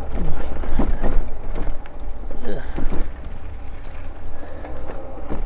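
Steady low wind and tyre rumble from an e-bike rolling on a paved trail. Knocks and rattles come in the first three seconds as the bike and its towed dog trailer bump over tree roots.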